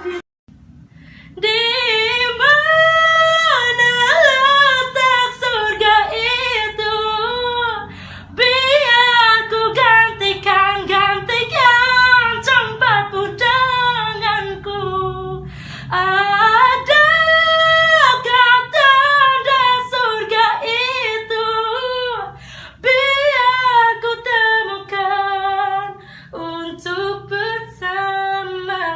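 A man singing in a high voice that sounds like a woman's, holding and sliding between notes in several phrases with short breaths between them.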